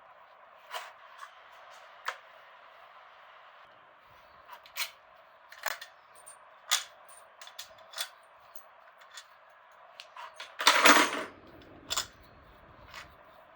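Metal tools and small engine parts clinking and tapping in scattered sharp knocks during engine teardown, with one louder, longer clatter about eleven seconds in, over a steady background hiss.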